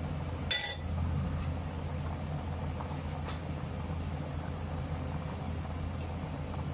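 Pot of tom yam soup boiling on a lit gas stove burner: a steady low hum and rushing, with one sharp clink about half a second in and two faint ticks a little after the middle.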